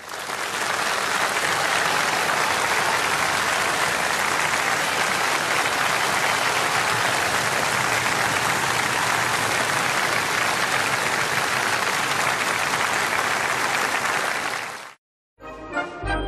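Large concert audience applauding steadily and loudly, cut off abruptly about fifteen seconds in. After a brief silence, music starts near the end.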